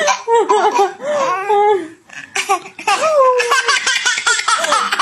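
A baby laughing in repeated high-pitched bursts, with a short pause about two seconds in.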